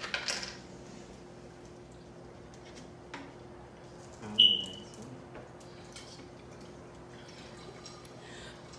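Quiet sipping and swallowing of soda from cans and bottles, with a few faint clicks over a steady low hum. A single short, high squeak sounds sharply about four and a half seconds in.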